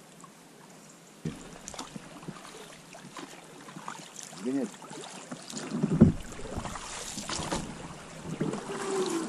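Inflatable PVC boat moving into a shallow rocky riffle: water rippling and splashing against the hull, with scattered knocks, scrapes and short squeaks. The loudest is a single knock about six seconds in.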